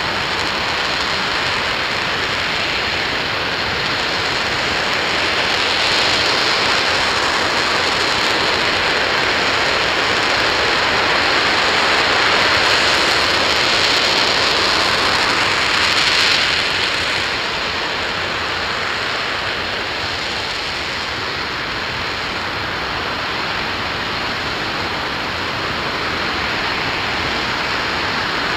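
Aerojet Rocketdyne RS-25 liquid-hydrogen/liquid-oxygen rocket engine (developmental engine E0525) firing continuously during a static hot-fire test: a loud, steady rushing noise that grows a little stronger and then eases slightly about 17 seconds in.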